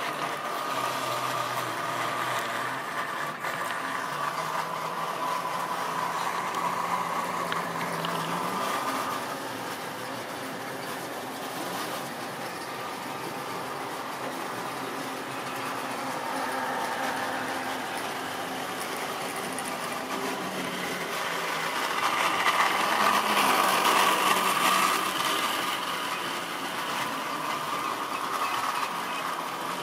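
Tri-ang model railway train running on the track: the electric locomotive motor's steady whine with the rattle of the wagons. It grows louder for a few seconds about three-quarters of the way through as the train passes close.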